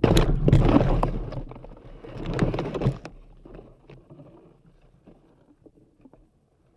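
Leaves and branches brushing and scraping against the balloon payload box and its GoPro as it moves through dense forest undergrowth, with a few sharp knocks. It is loudest in the first three seconds, then fades to faint scattered ticks.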